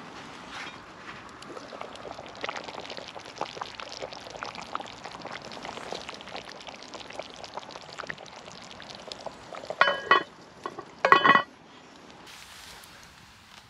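Stew simmering in an open cast iron Dutch oven over a wood fire, a steady bubbling with many small pops. Near the end there are two loud ringing metallic clanks about a second apart as the heavy cast iron lid is set back on the pot.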